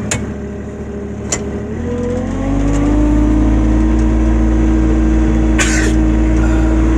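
ATV engine running slowly, then speeding up about two and a half seconds in and holding a steady higher speed. A few short knocks or rattles are heard along the way.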